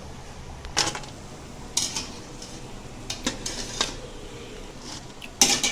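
Metal utensils clinking and scraping against a metal pan in a few separate clatters, the loudest near the end.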